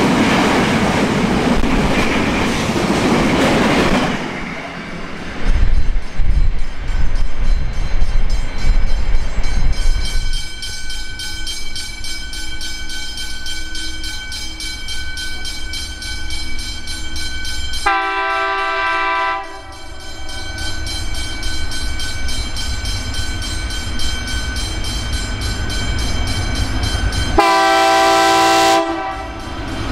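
Freight wagons carrying tank containers rushing and clattering past on the rails. Then the low rumble of an approaching freight train, whose lead SCT Logistics locomotive sounds its horn twice, each blast a chord of several notes lasting about a second and a half.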